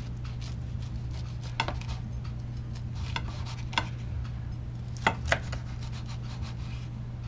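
Kitchen knife sawing through a crisp pan-fried grilled cheese sandwich on a plate: the toasted crust crackles and crunches, with a few sharp clicks, the loudest two about five seconds in. A steady low hum runs underneath.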